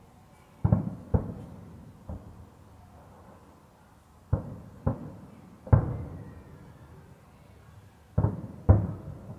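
Distant aerial firework shells bursting: eight deep booms, mostly in pairs, each trailing off in a rolling echo.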